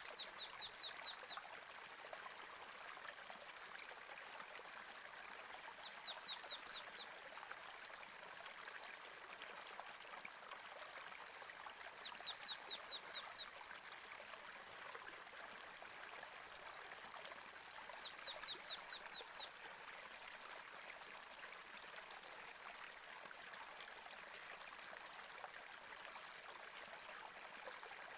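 A stream running steadily, with a bird giving a quick run of five or six high falling chirps four times, about every six seconds.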